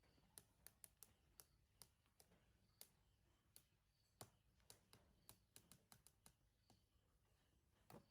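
Faint, irregular sharp clicks, about two or three a second, with the loudest a little past the middle, over a near-quiet background.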